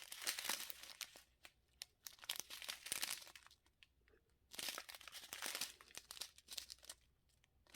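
Small plastic packets of diamond-painting drills crinkling as they are handled, in three bouts of a second or two with quiet pauses between.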